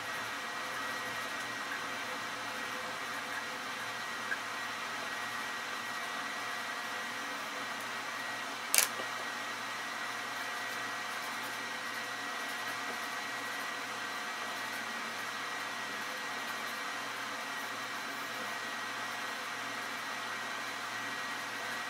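Steady background hiss with a faint, thin high tone held throughout. One sharp click sounds about nine seconds in.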